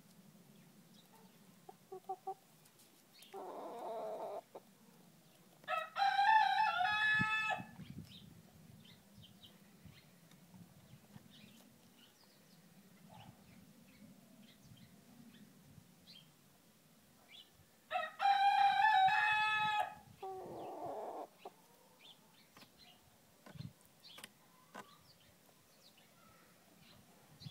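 Young Pekin bantam rooster crowing twice, about twelve seconds apart, each crow lasting close to two seconds. Shorter, lower calls come just before the first crow and just after the second.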